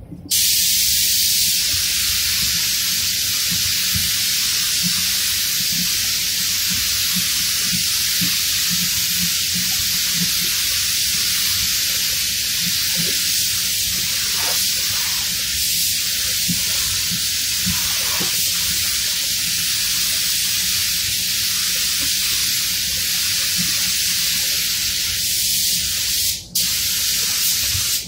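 Compressed-air paint spray gun spraying, a loud steady hiss of air and atomised paint, with one brief break near the end.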